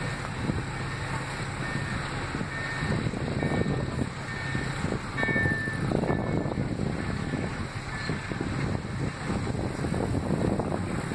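Ride noise of a passenger train from inside a double-deck coach: a steady low rumble with irregular clatter of the wheels on the track, and a few short high squeaks about halfway through.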